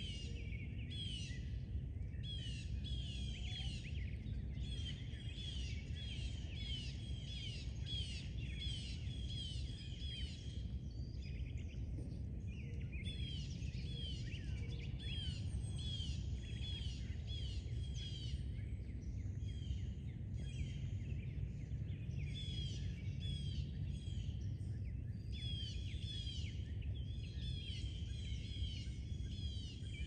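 Wild birds singing: long runs of quick, repeated down-slurred chirps with a few short breaks, over a steady low rumble.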